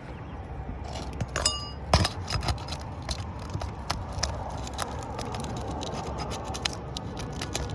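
Scraping and clicking as asphalt roof shingle tabs are pried up and worked loose from the roof, with a sharp ringing click about a second and a half in and a knock just after. The shingles are stuck fast to the roof.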